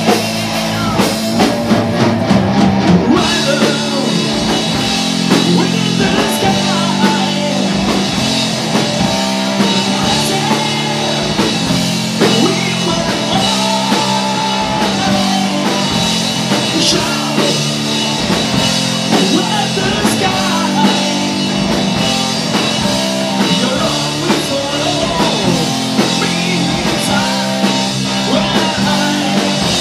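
Live rock band playing: electric guitars and drum kit, with a man singing lead vocals into a microphone.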